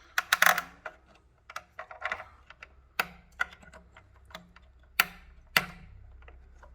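Irregular small metallic clicks and taps of bolts and ring terminals being handled as the motor's phase wires are unbolted, with the sharpest clicks about three seconds in and twice around five seconds.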